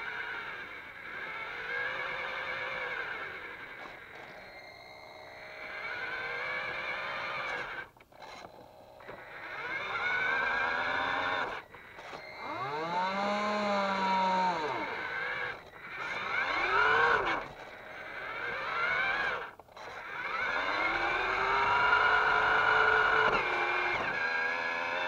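Toy Linde forklift truck's small electric motors and gears whining in a series of runs a few seconds long, the pitch sweeping up and then back down as the radio-control throttle is worked, with short pauses between runs.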